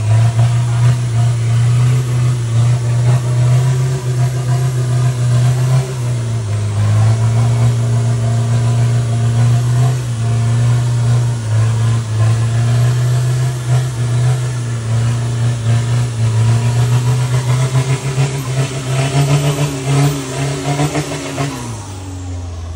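A motor on an off-road Toyota Hilux competition truck running hard and steadily under load, with a brief sag in pitch about six seconds in. Near the end its pitch falls away and it settles to a lower hum.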